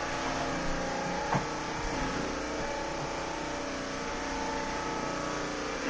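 Bissell CrossWave cordless wet-dry vacuum running as it mops a tiled floor: a steady motor hum and whir with its brush roll turning, and one brief knock about a second and a half in.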